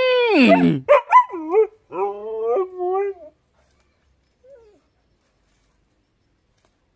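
A pet animal crying in several drawn-out, wavering whines over about three seconds, the first sliding down in pitch, with one faint short cry a little later.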